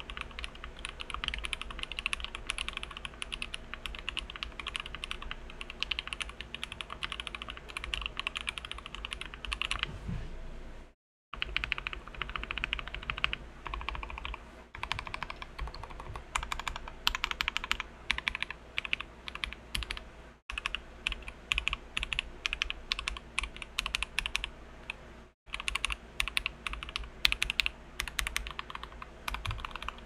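Fast, continuous typing on a DZ60 60% mechanical keyboard with lubed and filmed JWick Red linear switches, PBT doubleshot Cherry-profile keycaps and a polycarbonate plate in a foam-filled aluminium case: a dense run of keystrokes. It breaks off into dead silence for a moment about a third of the way in, and twice more later.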